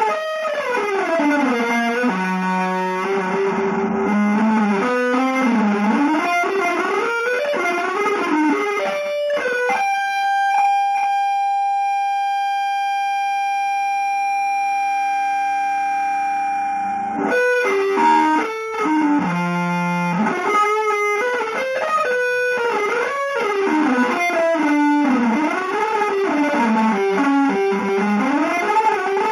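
Electric guitar playing fast single-note runs that sweep up and down in pitch. About ten seconds in, one high note is held for about seven seconds before the fast runs resume.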